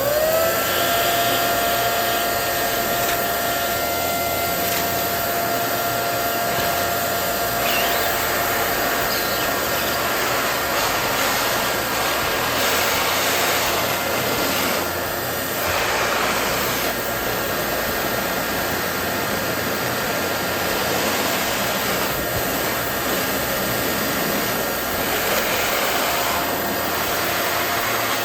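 Electric balloon inflator running steadily, a whirring blower with a constant whine that settles to a steady pitch just after the start.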